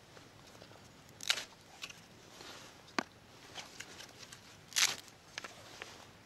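Scattered rustling and handling noises as dry wooden sticks are moved in a dirt pit, with one sharp wooden click about three seconds in and the loudest rustle near the five-second mark.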